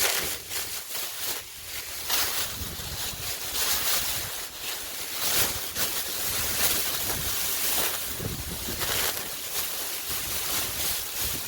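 Wind gusting and buffeting the microphone, an uneven rushing noise that swells and dips every second or two, with low rumbles from the buffeting.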